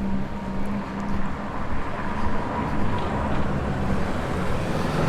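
Road traffic noise: a motor vehicle's engine hum close by, fading in the first second or two, over a steady street rumble.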